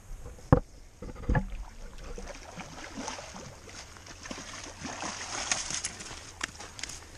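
Shallow water splashing and sloshing while a hooked salmon is brought in to the bank, with two sharp knocks about half a second and a second and a half in.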